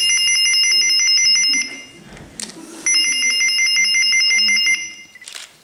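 Electronic telephone ringing with a fast trilling pulse, two rings about three seconds apart.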